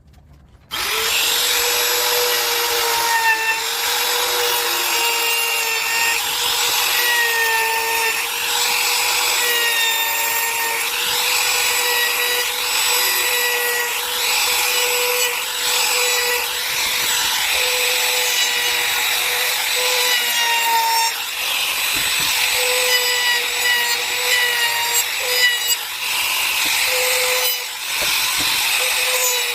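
Wood router running and cutting into wood: a steady high motor whine over a rasping cut, starting abruptly about a second in. The pitch dips briefly every few seconds as the bit takes load.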